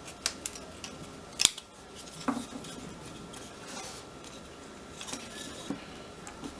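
Small precut wooden pieces being pressed and punched out of a thin wooden kit sheet: a series of sharp clicks and snaps, the loudest about a second and a half in.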